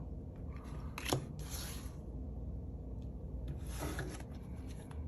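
Tarot cards being handled: a light tap about a second in, then soft sliding and rubbing of card stock, faint over a low room hum.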